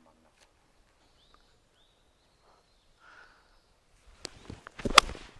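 Golf club striking a ball off the turf: a quiet swing, then one sharp, crisp impact near the end. Before it, two faint short bird chirps.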